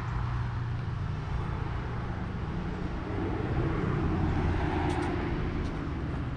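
Low, steady engine hum of a vehicle, swelling a little about halfway through.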